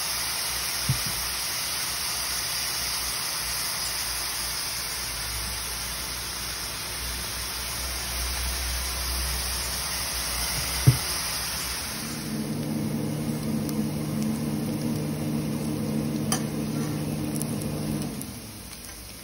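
Diced onions and green chilies sizzling in oil in a steel pan, a steady hiss, with a single sharp knock about eleven seconds in. From about twelve seconds in the hiss softens and a steady hum joins it for about six seconds.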